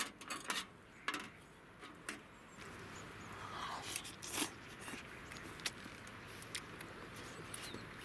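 Scattered light clicks and clinks of a metal fork against the cooking pot and utensils as pasta is lifted out and eaten.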